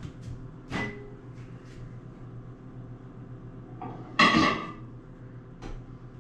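A dish being handled at the microwave: a light click a little under a second in, then a loud clink and clatter about four seconds in that rings briefly.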